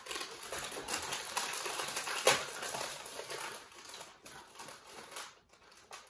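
Plastic snack packaging crinkling and rustling as it is handled and opened, with a sharp crackle about two seconds in; the crinkling thins out toward the end.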